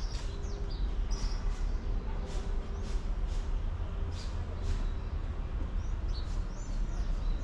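Footsteps of someone walking, about two steps a second, over a steady low rumble, with small birds chirping a few times near the start and again near the end.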